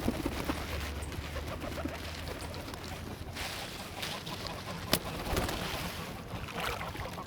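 A crowd of geese, ducks and other birds calling over one another as they are fed, with a single sharp click about five seconds in.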